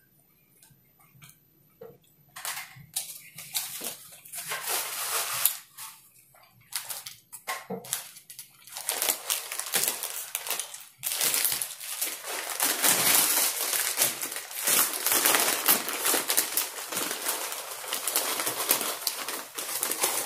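Chewing of a bite of pretzel-bun burger in short bursts, then the long, dense crinkling of a plastic potato-chip bag being handled and opened.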